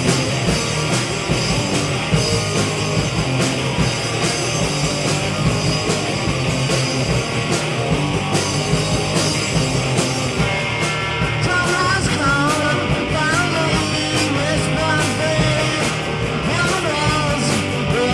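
Live rock band playing loud, with electric guitar and a drum kit with crash cymbals. A voice comes in singing over it about halfway through.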